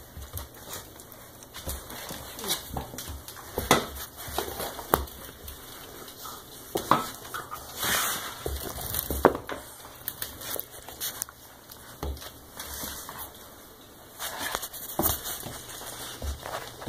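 Two English Mastiff puppies play-fighting on a wooden floor: bodies and paws scuffling on the boards and a dog bed, with dog noises and a scatter of sharp knocks.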